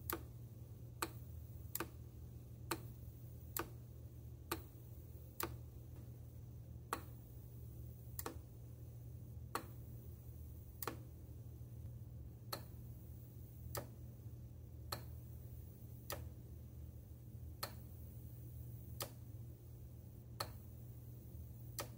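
Opened 5 V electromechanical relay clicking as its coil is switched on and off, the armature snapping the spring-loaded contacts between the normally closed and normally open plates. Single sharp clicks about once a second, spacing out a little in the second half, over a steady low hum.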